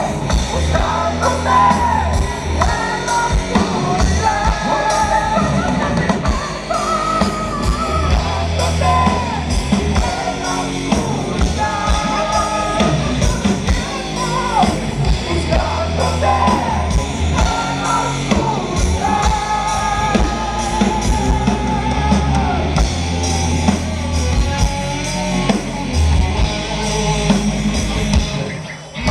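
Heavy metal band playing live: distorted electric guitars, bass and a pounding drum kit under a wavering lead vocal, heard from the audience. The music breaks off briefly near the end.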